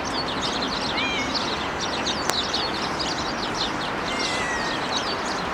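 Many small birds chirping rapidly over a steady background hiss, with a couple of longer whistled notes about a second in and again near the end.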